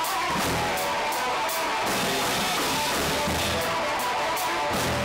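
A post-punk band playing live, led by the drum kit: a steady beat of cymbal strokes over kick drum, with sustained instrument tones underneath.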